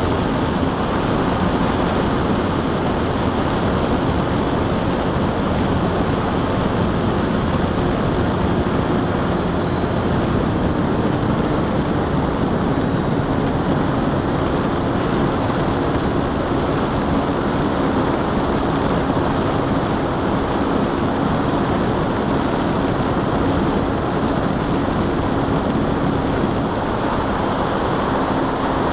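Wind rushing over the onboard camera microphone of an FPV model aircraft in flight, with the steady drone of its motor and propeller underneath; the motor's pitch shifts slightly about ten seconds in.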